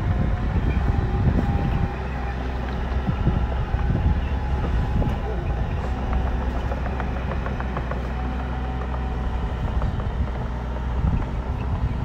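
Engine of heavy earthmoving machinery running steadily under load, a deep rumble, with a few light clanks about halfway through.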